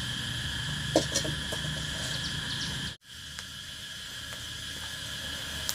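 Steady high chirring of insects such as crickets, with a few light clicks and knocks about a second in; the sound drops out for a moment about halfway through.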